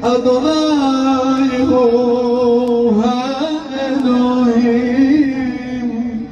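A man singing a slow Jewish worship chant in long held notes that waver and bend, with a brief break about three seconds in.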